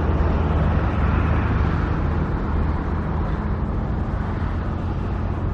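A motor vehicle engine running steadily with a low hum, heard as continuous outdoor engine and road noise.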